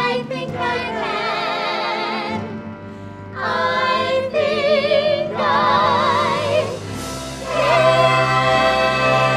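Musical-theatre singing: voices with strong vibrato sing phrases separated by short breaks over backing music. From about seven and a half seconds in, the voices and instruments swell into a long held chord.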